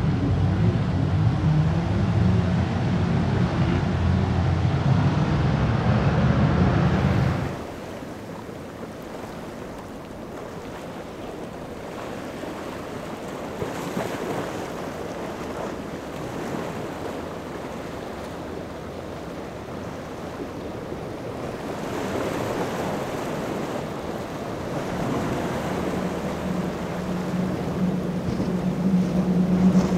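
Powerboat engines running loudly, then dropping away suddenly about seven seconds in, leaving the wash of waves and wind on the microphone. A boat engine's steady drone comes back in near the end.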